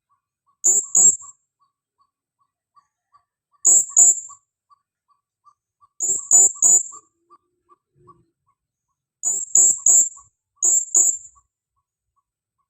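Female blue-crowned hanging parrot (serindit) calling to its companions with sharp, very high-pitched notes in quick pairs and triplets, five bursts a few seconds apart. Faint ticking is heard between the bursts.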